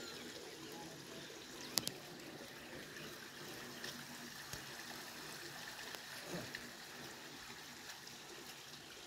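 Ghagra waterfall's water flowing steadily and faintly over rocks, with two sharp clicks just under two seconds in.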